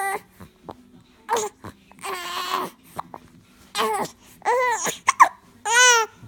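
A young child crying in a string of short, high-pitched wails broken by pauses; the child is upset at having the hiccups.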